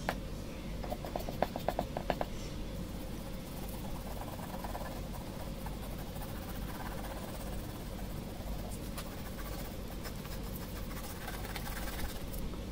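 Graphite pencil scratching on drawing paper in a quick run of short strokes about a second in, then a steady low hum.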